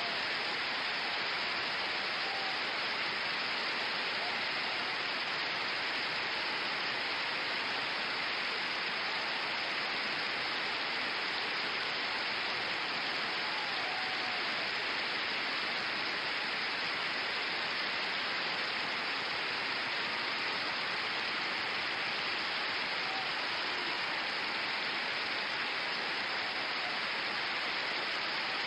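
Theatre audience applauding: dense, steady clapping that keeps up without a break.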